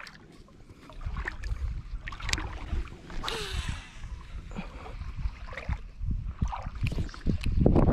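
Shallow salt water sloshing around a wading angler's legs, with wind buffeting the microphone and a low rumble that peaks near the end. About three seconds in, a cast sends a short hiss of line off a baitcasting reel.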